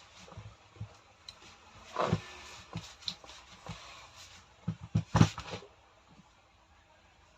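Hand work on a rotary hammer's parts: irregular clicks, knocks and light scraping, with a louder knock about two seconds in and a quick cluster of sharp knocks around five seconds in.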